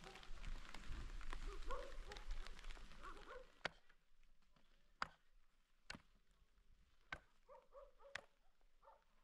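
A steel shovel striking the stony earth of a packed-earth roof: five sharp knocks, roughly a second apart, in the second half. Before them, a louder rustling stretch with short animal calls.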